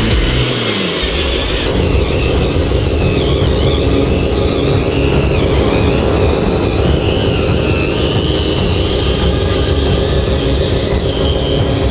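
A truck engine running steadily.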